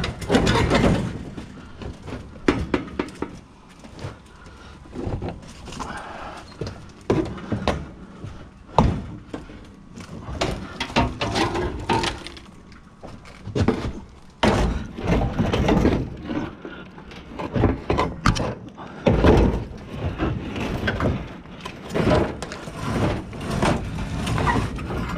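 Repeated knocks, thunks and clatter of scrap items being shifted and wedged into a load.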